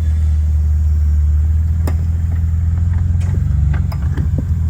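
Jeep engine running low and steady while crawling off-road, with a few sharp knocks and clicks scattered over it.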